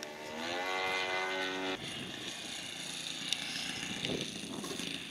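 Radio-controlled model airplane's motor and propeller whining steadily, rising slightly in pitch, then cutting off abruptly under two seconds in; a quieter rushing noise with a few faint clicks follows.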